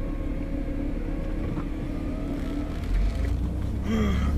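Car engine and road noise heard from inside the cabin while driving, a steady low rumble that grows louder about three seconds in, as if the car is speeding up. A short pitched sound slides down in pitch just before the end.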